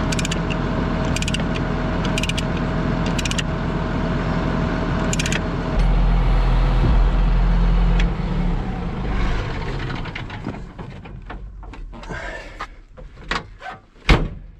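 Caterpillar crawler dozer's diesel engine running at idle, with sharp metallic clinks about once a second from the chain and binder being handled. About eight seconds in the engine is shut off and winds down, leaving scattered knocks and one loud bang near the end as the operator climbs out over the machine.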